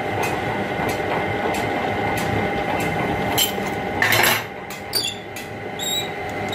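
Workshop machinery running with a steady hum, with scattered sharp metal clinks and knocks and a short harsh hiss about four seconds in.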